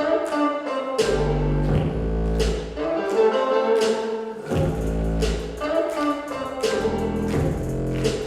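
Recorded dance music in an instrumental passage: deep sustained low notes under repeated sharp percussive hits, with no singing.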